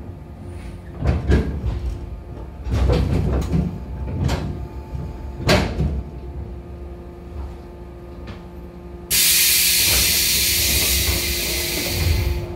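A 415-series electric train coming to a stop, heard from inside the car: a few clanks and knocks from the wheels in the first seconds, then a steady hum while it stands. About nine seconds in, a loud hiss of compressed air starts suddenly and the pneumatic doors slide open, ending with a thud.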